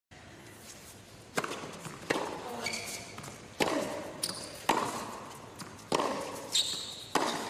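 Tennis rally on an indoor hard court: sharp racket strikes and ball bounces about once a second, beginning about a second and a half in, with short high squeaks of shoes on the court between some of the shots.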